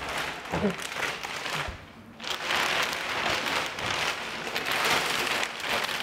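Clear plastic bag wrapping a chair rustling and crinkling as the chair is pulled out of its cardboard box and handled, with a brief pause about two seconds in.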